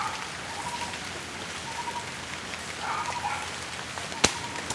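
Steady rain, with scattered drops tapping and one sharp tap near the end.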